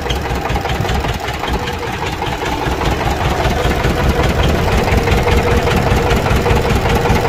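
The engine of a mobile sugarcane-juice cart running steadily. The same engine drives the cart and powers its cane crusher.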